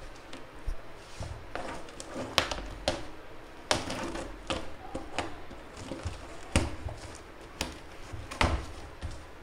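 Cardboard box being handled and its flaps pulled open: rustling and scraping cardboard with sharp knocks and taps, about eight of them, irregularly spaced.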